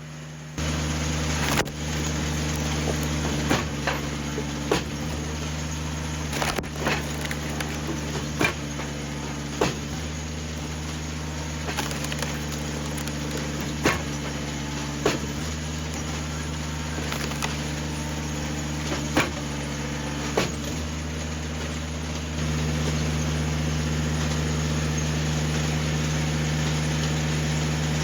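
Engine of an Eastonmade 37D firewood processor-style wood splitter running steadily, with sharp knocks and cracks every second or two as wet poplar rounds are split and pieces drop. The engine gets louder about 22 seconds in.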